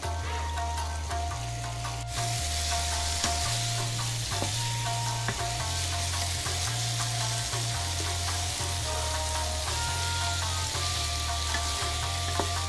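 Pieces of tofu sizzling as they are stir-fried in a frying pan to brown them, stirred with a wooden spatula that gives small scraping clicks; the sizzle grows louder about two seconds in. Background music with a slow-changing bass line plays throughout.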